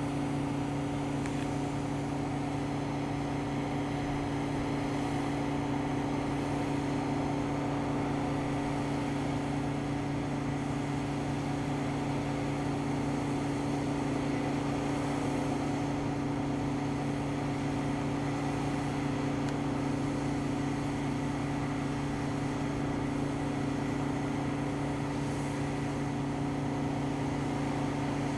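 Heavy diesel harvest machinery running at a steady, constant speed: an even engine drone with a strong low hum throughout.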